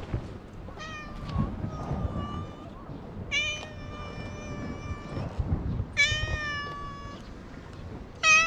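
A tabby-and-white stray cat meowing repeatedly, a series of long drawn-out meows, the last one the loudest.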